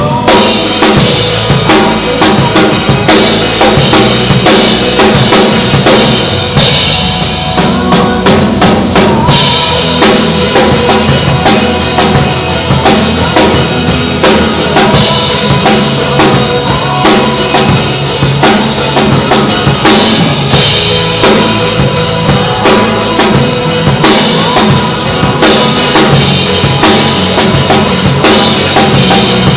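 Drum kit played live to recorded pop music: a steady beat of bass drum, snare and cymbals with fills, over the song's instrumental backing.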